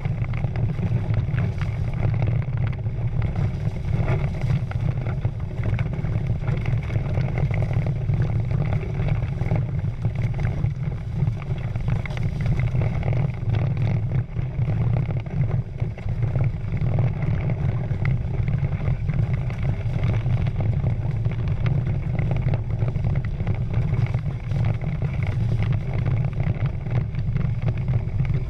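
Steady low rumble of wind on the microphone, mixed with water rushing and splashing past the hulls of a Prindle 16 catamaran under sail.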